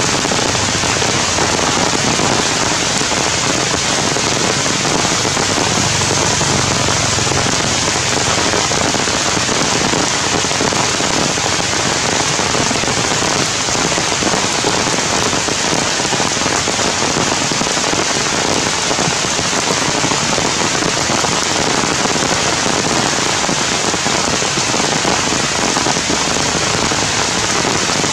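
Heavy rain falling steadily on forest leaves, an even, dense hiss with no let-up.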